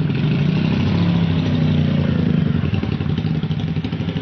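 An engine running close by, its pitch rising a little about a second in and easing back near the end.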